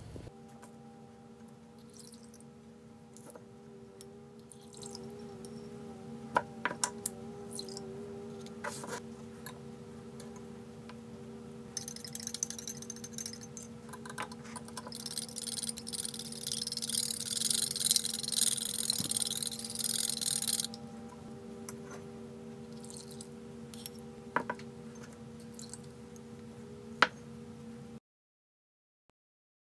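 A metal whisk beating egg yolks in a ceramic bowl: a fast, scratchy clatter for about eight seconds in the middle, over a steady low hum with a few sharp utensil clicks. The sound cuts off to silence near the end.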